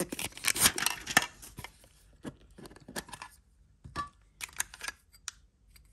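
Plastic shrink wrap crackling and tearing as it is stripped off a small metal trading-card tin. After that come a few scattered clicks and scrapes of the tin being handled and its lid opened.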